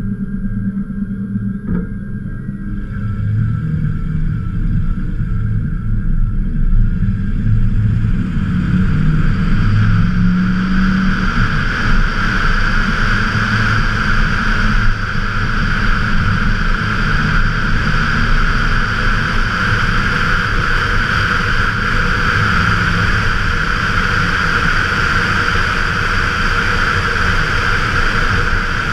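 1995 Ford F-150's 5.0 L 302 V8 running through an aftermarket exhaust with a QTP cutout, pulling away and accelerating in the first ten seconds or so, then cruising. A rushing wind noise on the outside-mounted camera grows with speed and is the loudest sound for the rest of the stretch.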